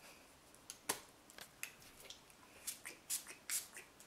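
Faint handling sounds from a plastic spray bottle: a string of short clicks and brief hisses, irregular and about a dozen in all.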